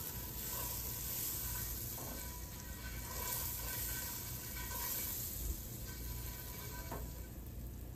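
A pat of butter sizzling with a steady hiss as it melts and foams in a preheated cast iron skillet, rubbed around the pan.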